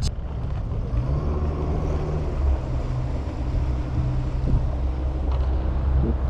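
An engine running steadily nearby: a low, even rumble with a steady hum that settles in about a second in.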